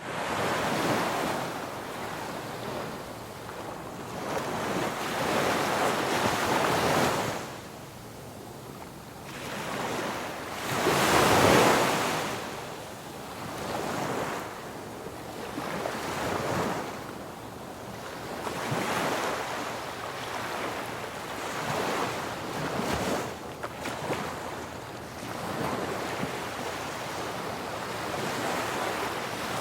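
Ocean waves breaking on a beach, the surf swelling and falling back every few seconds, one wave much louder about eleven seconds in.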